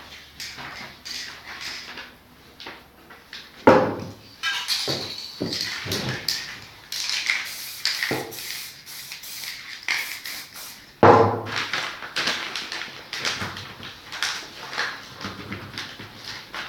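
Handling noises of spray painting on a canvas: scattered knocks, clicks and paper rustling, with two louder thumps about four and eleven seconds in and a hissing stretch between them.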